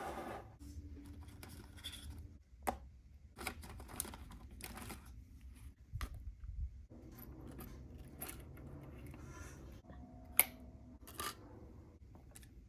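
Light taps and clicks of miniature cardboard boxes and a small plastic packet being set down on a wooden tabletop and handled, with short rustles in between; the sharpest click comes about ten seconds in.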